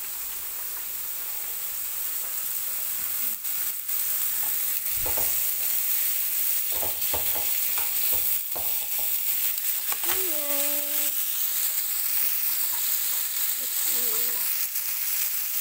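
Meat frying in oil in a non-stick pan: a steady sizzle, growing louder over the first few seconds. Clicks and knocks of tongs turning the pieces against the pan come between about 3 and 9 seconds in.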